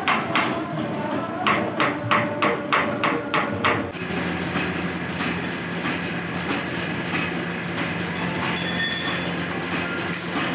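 Hammer striking metal in rhythmic blows, about three a second, stopping abruptly about four seconds in. A steady mechanical hum with clatter follows.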